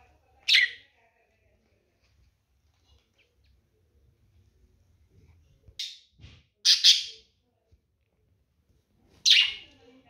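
Pet budgerigars giving short, loud chirps: one about half a second in, a quick run of three in the middle, and one more near the end, with quiet in between.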